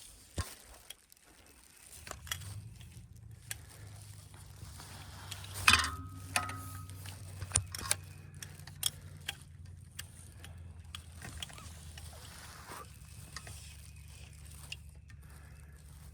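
Clicks, knocks and small rattles of a camera and tripod being handled and set up, the loudest knock about six seconds in, over a steady low hum.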